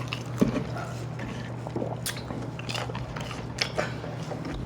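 A person chewing and biting food, with wet mouth sounds and a few short crisp clicks, over a low steady hum.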